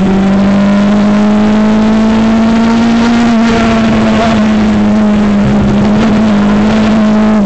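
Formula Ford race car engine at full throttle, picked up by the car's own onboard camera over wind and road noise. Its pitch steps down right at the start, then climbs slowly and holds high through the bend with small dips.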